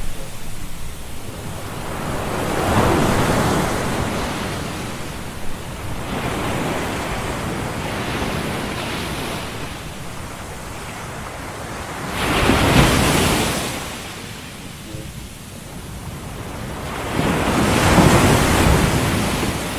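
Ocean surf: a rushing noise that swells and fades as waves come in, three times here, loudest about two-thirds of the way through and again near the end.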